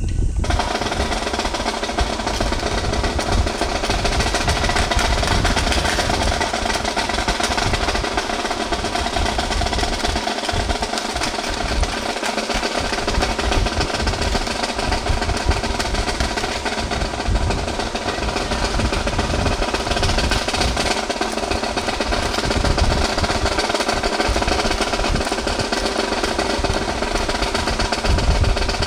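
Music with snare drum and drum rolls over held, sustained notes.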